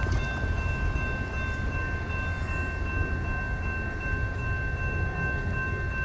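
An Amtrak train on street-running track: a steady low rumble with several steady, high ringing tones held over it.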